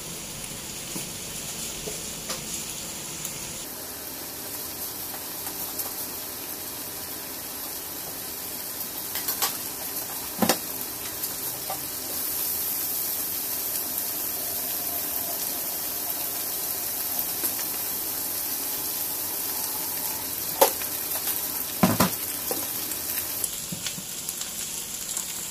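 Chicken and rendang spice paste sizzling in a hot wok: a steady frying hiss with a few sharp pops.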